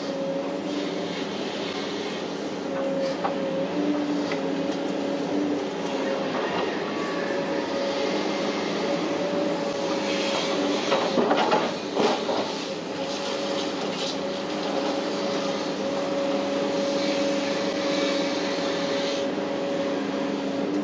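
Hitachi 850 excavator's engine and hydraulics running steadily under work, heard from inside the cab, with a steady whine over the engine noise. A few sharp knocks come about halfway through as the bucket works the mud.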